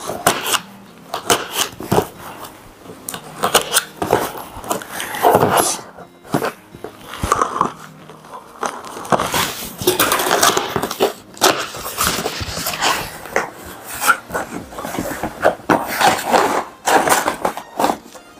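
Scissors cutting packing tape on a cardboard shipping box, then the cardboard flaps being pulled open and the box scraping and rubbing as an inner box is lifted out. Irregular scrapes and knocks.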